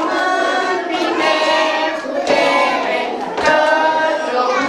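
A group of young children singing together in unison, with notes held for about a second each.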